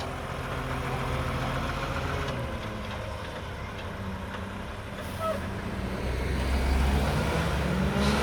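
Diesel engine of a Mack garbage truck with a McNeilus front-loader body running, growing louder about six seconds in.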